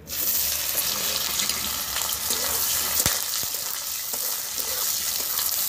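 Sliced onions sizzling in hot oil in an iron kadhai: a steady loud hiss that starts the instant they hit the oil. One sharp knock about three seconds in.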